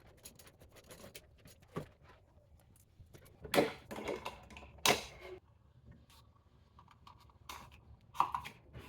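Handling noise of electrical cable being pulled through a hole in drywall: scattered light clicks and rustles, with two louder scraping rasps about three and a half and five seconds in.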